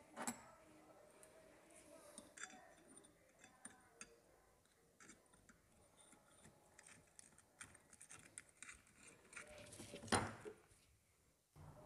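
Faint metallic clicks and taps as a motorcycle clutch assembly is seated by hand in the clutch housing of a TVS Metro engine, with one louder knock about ten seconds in.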